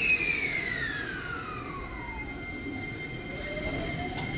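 Shizuoka Railway A3000-series electric train's inverter-driven traction motors starting off: a high tone glides steadily down for about two seconds, then a lower whine begins to rise as the train starts to move.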